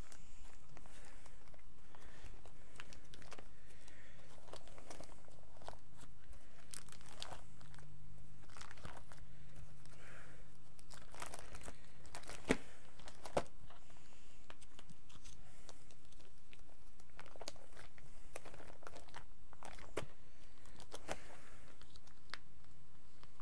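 Scattered rustling and crinkling as Pokémon trading cards and their packaging are handled and sorted, with two sharp taps a little past the middle.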